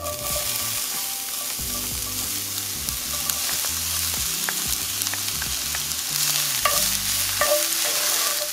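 Diced onion and garlic hit hot oil in a cast-iron skillet and start sizzling sharply. The sizzle holds steady while a wooden spoon stirs them, with a few sharp ticks of spatter and spoon on the pan.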